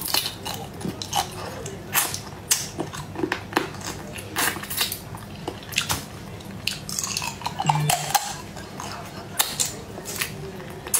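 Close-miked eating of spiced shellfish claws: repeated sharp cracks and crunches of shell being bitten and pulled apart, with wet chewing between them.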